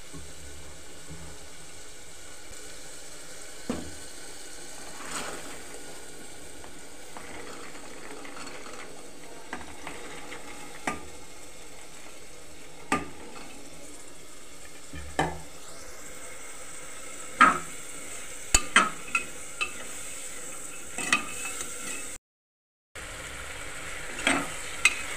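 Masala with soaked black-eyed peas sizzling in an aluminium pressure cooker while a metal spoon stirs it, clinking against the pot every second or two and more often in the second half. The sound drops out for under a second near the end.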